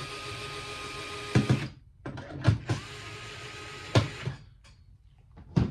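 Small electric screwdriver motor running twice for about two seconds each, spinning screws out of the cover's cavities, with a few sharp clicks of the tool and the parts in between.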